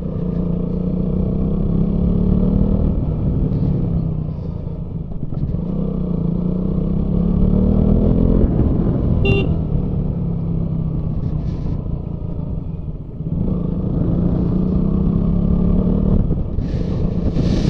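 Motorcycle engine running under way, its pitch rising and falling with the throttle and dropping off twice, over a steady low wind and road rumble. A brief high tone sounds about nine seconds in.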